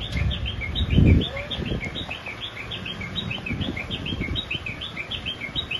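A bird chirping rapidly and without pause, about six short chirps a second that alternate between a higher and a lower note. Beneath it runs a low rumble that swells briefly about a second in.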